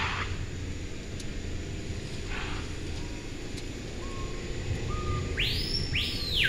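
Vehicle driving on an unpaved dirt road, heard from inside the cabin: a steady low rumble with two brief hisses. Near the end come two long whistled notes, each rising, holding and falling.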